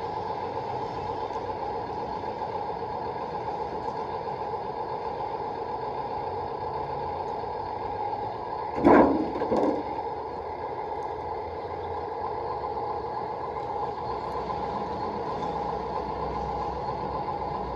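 Top Race TR213 RC wheel loader's small electric motors and gearing whining steadily while it works. About halfway through come two short, loud noises close together.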